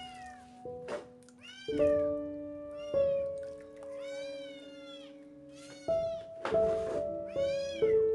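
A stray kitten meowing repeatedly, about seven high calls that rise and fall in pitch, while it is held and washed in a basin of water. Background music with long held notes plays under it.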